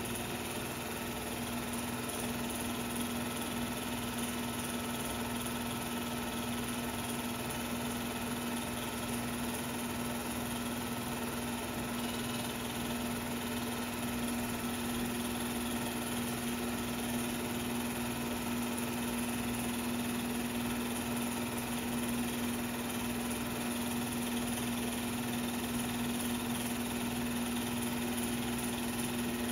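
Steady mechanical hum with one strong low tone over a constant hiss, from film transfer equipment running; the 16mm game film has no sound of its own.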